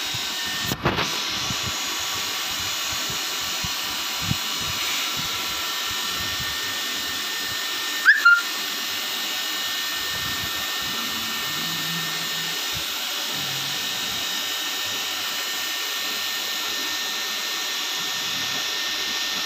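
Steady whirring of a small electric motor, with a faint whine over it. A sharp click comes about a second in, and a louder double click about eight seconds in.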